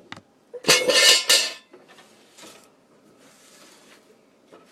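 Kitchen clatter: a sharp click, then a loud rattle of pots, dishes or utensils being handled lasting under a second, followed by faint handling noise.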